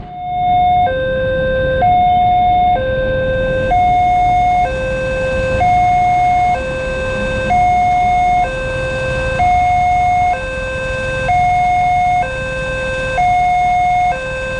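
Railway level-crossing warning alarm sounding while the barrier comes down: an electronic two-tone signal, a higher tone and a lower tone alternating about once a second, warning of an approaching train.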